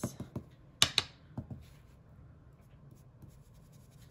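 A small handheld ink applicator dabbing and rubbing ink onto a sheet of paper on a tabletop. There are a few light taps, two sharper ones close together about a second in, and then faint rubbing.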